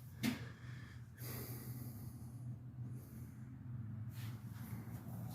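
A person breathing and sniffing close to the microphone, over a steady low hum.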